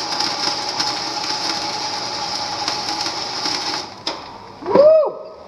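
Arc welder crackling steadily for about four seconds, then stopping, as studs are welded onto the ends of broken exhaust manifold studs so that they can be turned out. A single click follows, then a short rising-and-falling tone near the end.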